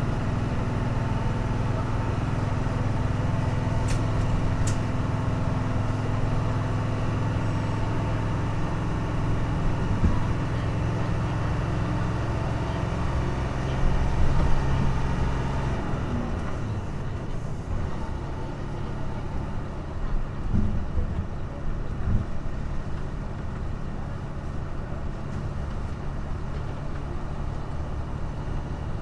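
Hino Blue Ribbon city bus engine, heard from inside the bus, running at high revs while climbing a steep hill. About halfway through it surges, then settles to a lower, steadier note. Two brief high beeps sound early on.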